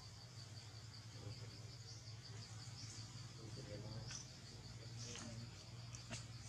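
Faint insect chirping, a high-pitched call repeating in a fast, even pulse without a break.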